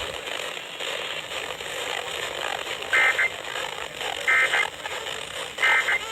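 NOAA Weather Radio's Emergency Alert System end-of-message signal: three short, harsh, buzzy SAME data bursts about a second apart over steady radio static. They mark the end of the alert broadcast.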